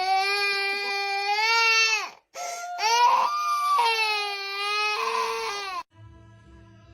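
Baby crying: two long, drawn-out wails with a short break between them, stopping about six seconds in.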